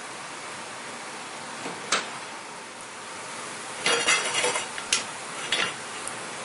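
Metal kitchenware clinking and knocking around a stainless steel frying pan: a single sharp knock about two seconds in, a quick clatter of several clinks about four seconds in, then two more knocks, over a steady hiss.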